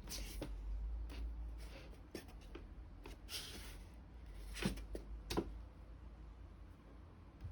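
Objects being handled: brief rustling and scraping, then two sharp knocks a little under a second apart, over a low steady hum.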